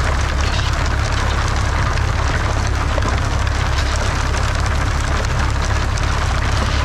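Farm machinery running steadily: a constant low hum under a dense, even crackling hiss, with no break or change.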